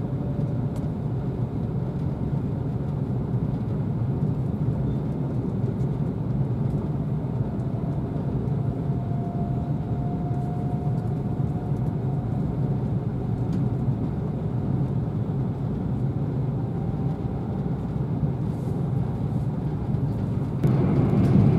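Cabin noise of an E4 series double-decker Shinkansen running at speed: a steady low rumble with a faint whine that rises slightly in pitch partway through. About a second before the end the sound suddenly jumps louder.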